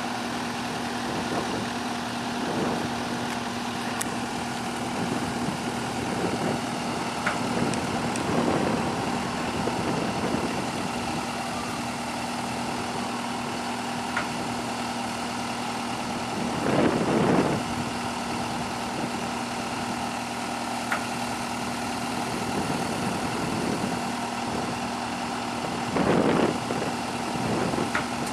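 Heavy diesel machinery engine running steadily at idle, swelling louder briefly twice, about two-thirds of the way in and near the end.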